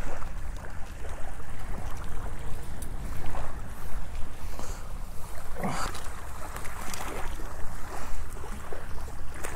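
Wind buffeting the microphone in a steady low rumble, with small waves lapping at the shoreline.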